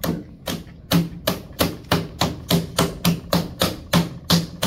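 Wet clay being slapped with both hands, a ball of clay on a potter's wheel head patted into a cone to seal its edge to the wheel. A quick run of sharp, smacking slaps with a dull thud, about three a second and getting slightly faster.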